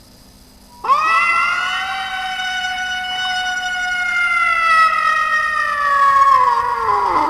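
One long, loud howl from an animal. It rises quickly about a second in, holds for about six seconds while slowly dropping in pitch, and slides down at the end.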